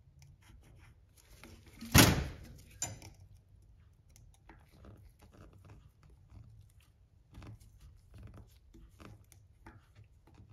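A screwdriver prying the rubber dust cap off a bicycle front hub: one sharp snap about two seconds in, a smaller click soon after, then faint light taps and clicks of handling the hub.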